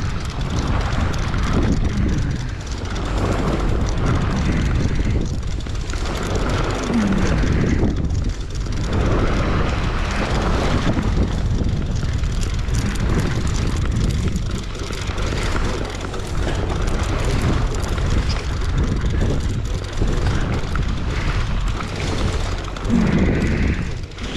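Steady low rumble with rushing noise that swells and eases every second or two, aboard a fishing boat in choppy seas.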